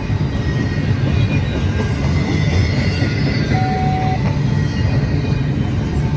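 Double-stack intermodal freight train's loaded well cars rolling past close by: a steady heavy rumble of steel wheels on rail, with faint high wheel squeal over it and a brief thin whine a little past the middle.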